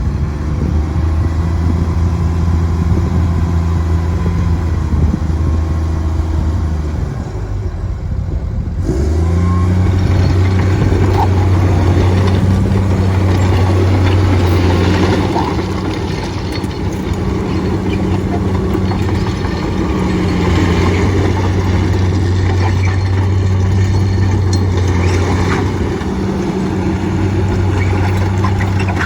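Komatsu D51EX-22 bulldozer's diesel engine running steadily. About nine seconds in the sound changes abruptly and grows fuller and louder, with scattered knocks and rattles from the working machine.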